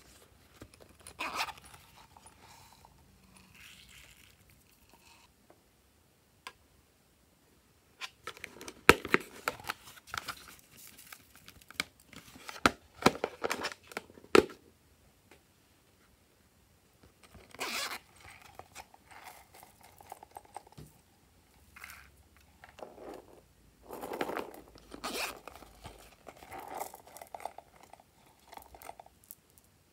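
Small plastic toy containers handled and opened, with irregular clicks, rattles and scraping as beads and sprinkles are shaken out of them. The sounds come in clusters, with two short quiet gaps.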